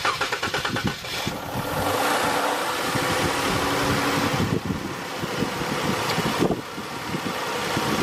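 Dodge Charger's 3.6-litre V6 cranking for about a second, catching and then idling steadily. It is started just after an alternator replacement, with the new alternator charging: the battery voltage rises to about 13.9 V.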